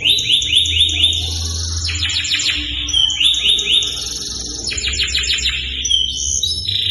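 Domestic canary singing nonstop: fast rolling trills and repeated chirping phrases, each held about a second before switching to the next.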